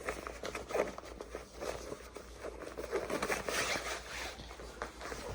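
Rustling and swishing of insulated waders being pulled on, with irregular fabric scrapes and small clicks.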